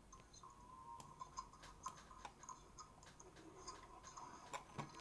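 Near silence with faint, irregular computer mouse clicks, a few of them close together, over a faint steady whine.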